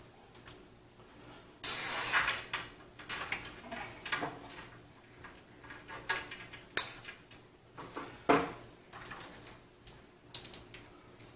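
Bundles of computer power and data cables rustling, scraping and knocking against the steel computer case as they are routed and tied by hand, with scattered clicks. A longer scrape comes about two seconds in, and one sharp click, the loudest sound, near seven seconds.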